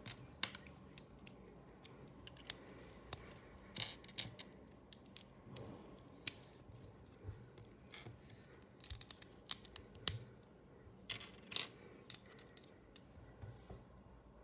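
LEGO plastic bricks clicking as they are pressed together by hand and picked off a glass tabletop: a run of irregular sharp clicks.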